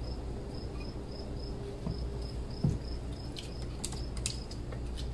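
Crickets chirping in a steady, even rhythm of short high chirps, with a few light clicks partway through.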